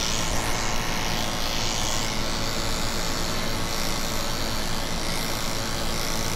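Electric dog grooming clippers running steadily while trimming around a springer spaniel puppy's ear, a continuous motor hum.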